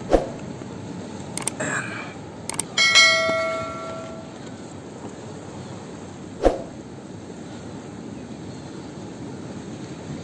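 A piece of metal struck once about three seconds in, ringing like a small bell and fading over about a second and a half. Sharp knocks come at the start and a little past six seconds, with a few clicks before the ring, over steady background noise.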